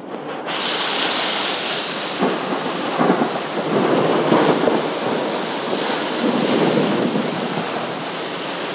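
Heavy thunderstorm rain and wind beating on a car: a loud, steady rush that comes on suddenly at the start and is a little louder for a few seconds in the middle.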